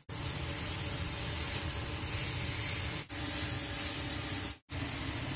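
Steady hissing sizzle of green chillies and long beans frying in spice paste in a wok, broken by short gaps about three seconds in and near the end.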